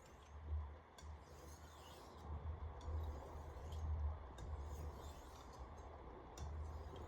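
Wüsthof Classic chef knife blade being stroked back and forth on a 3000-grit whetstone: faint, repeated scraping passes with small clicks, polishing the edge after the 800-grit stone.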